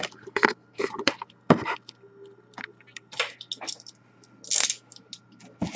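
Irregular short clicks and light scrapes of objects being handled, over a faint steady hum.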